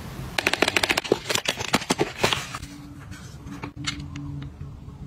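Quick run of small hard clicks and taps from handled makeup packaging, about eight to ten a second for some two seconds, followed by a few single clicks.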